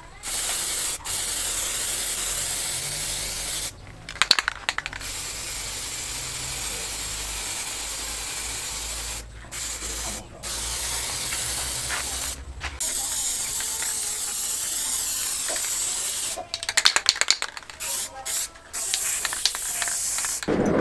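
Aerosol spray can hissing in long sprays with short pauses, coating a finished axe head and handle. Twice a short burst of rattling clicks breaks in, about four seconds in and near the end.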